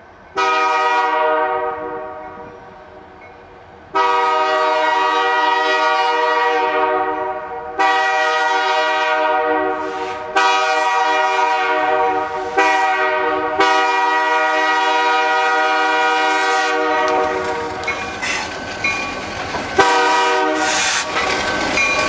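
Multi-chime train air horn sounding a chord in a string of long, loud blasts. Each new blast cuts straight in over the last, and the first one fades away over a few seconds.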